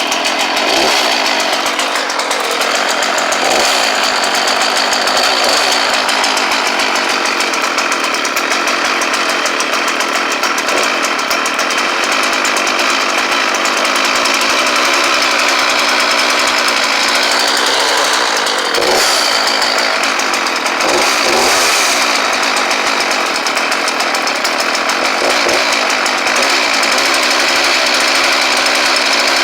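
Two-stroke chainsaw engine running steadily just after a cold start in winter, left running to warm up.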